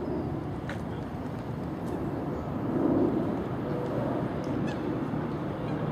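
Outdoor city ambience: a steady low rumble of background noise that swells briefly about three seconds in, with a few faint clicks.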